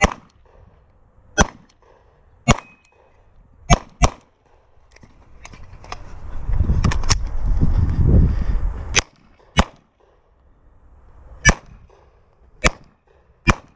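Semi-automatic pistol firing about a dozen close, sharp shots at an irregular pace, several in quick pairs, as the shooter engages targets. About halfway through, a few seconds of low rumbling movement noise come between the shots while the shooter moves to a new position.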